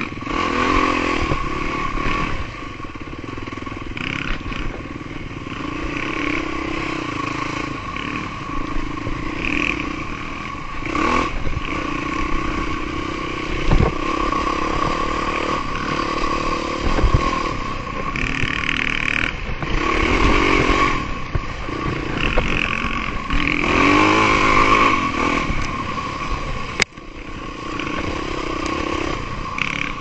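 Yamaha dirt bike engine running under way on a trail, its revs rising and falling with the throttle, with a couple of stretches of harder revving about two thirds of the way through.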